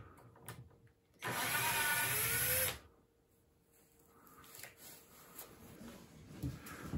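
Cordless drill running a screw for about a second and a half, starting about a second in, its motor whine rising in pitch. A few light knocks follow.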